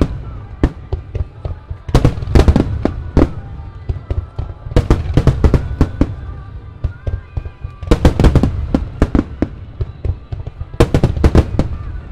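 A starmine fireworks barrage: aerial shells launching and bursting in rapid volleys of sharp bangs, one cluster about every three seconds, with a low rumble between them.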